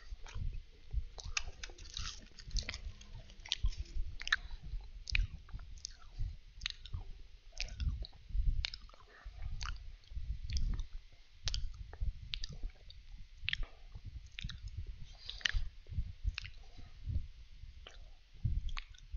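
Danish butter cookies being bitten and chewed close to a headset microphone: a run of irregular crisp crunches and mouth clicks.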